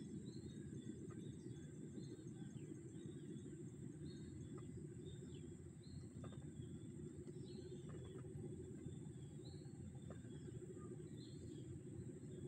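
Outdoor ambience of a steady high-pitched insect drone with short bird chirps every second or so, over a low rumbling noise.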